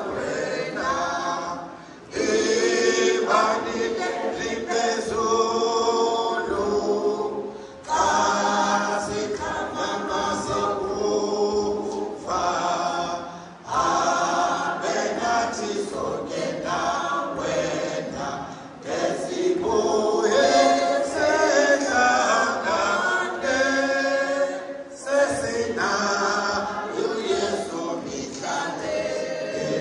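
A large congregation of women singing a hymn together without accompaniment, in long phrases with a short breath between them about every five to six seconds.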